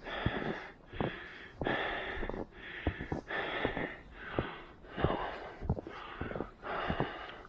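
A runner breathing fast and hard in an even rhythm, a breath in or out about every three-quarters of a second, with the thud of footsteps in snow underneath.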